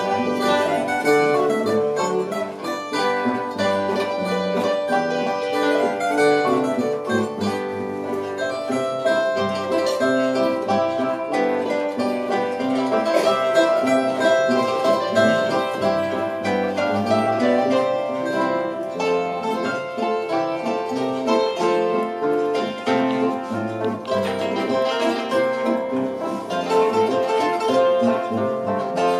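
A zither and a guitar playing an instrumental Bavarian folk tune together, a steady flow of plucked notes.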